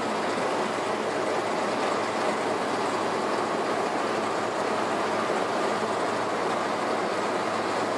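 Amphibious bus cruising on a river: a steady engine drone mixed with the rush of water along its hull, an even noise with no breaks.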